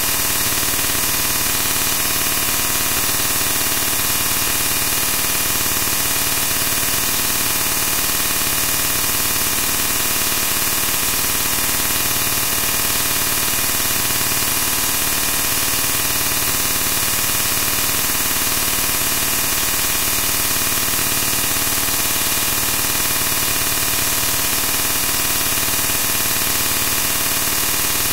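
Loud, unchanging hiss of static-like noise, brightest in the highs, with no speech or distinct events in it.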